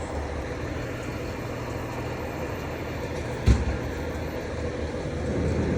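Steady low rumble of vehicle engines and street noise outdoors, with a single sharp thump about three and a half seconds in.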